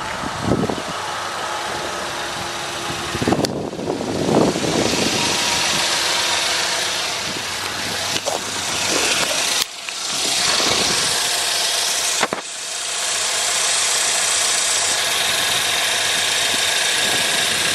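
Chevy Equinox 2.4-litre four-cylinder engine idling steadily, heard close up with a constant hiss. There are a few handling bumps in the first few seconds, and the sound drops out briefly twice in the second half.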